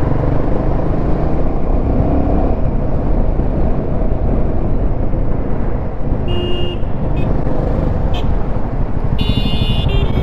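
Steady riding noise from a Royal Enfield Himalayan 450 moving through city traffic: engine, tyres and wind rumbling. Two short vehicle horn beeps sound about six seconds in and again near the end.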